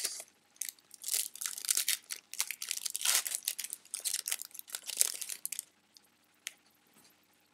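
Plastic wrapper of a baseball card pack being torn open and crinkled by hand: a dense run of crackling and crinkling for about five seconds, stopping about two seconds before the end.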